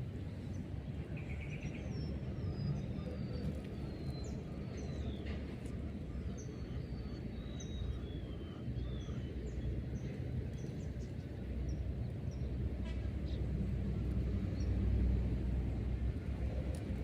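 Outdoor ambience: a steady low rumble with birds chirping over it, several short descending whistles in the first half.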